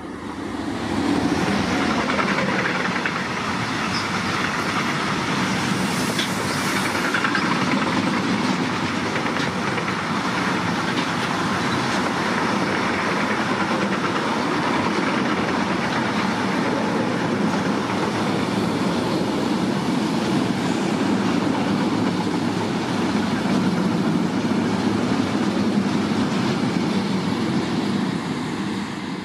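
A train passing close by on the main line: a steady, loud rolling noise of wheels on rail. It builds within the first two seconds, holds for nearly half a minute, and eases off at the very end.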